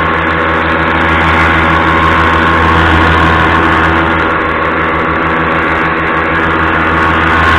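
Paramotor engine and propeller running steadily at cruise power in flight, a loud, even drone with a strong low hum.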